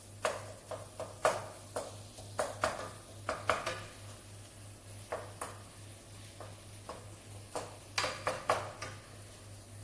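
Irregular clinks and knocks of a kitchen utensil against a pan and dishes as the meat sauce is worked, over a low steady hum.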